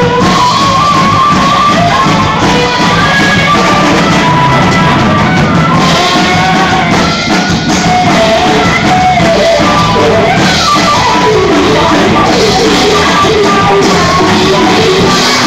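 Live rock band playing loud: electric guitars and a drum kit, with a singer's voice over them, picked up on a phone's microphone.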